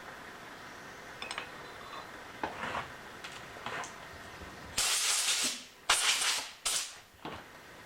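Three short bursts of hissing air from a shop air blow gun, the first the longest, after a few light metallic clicks and taps.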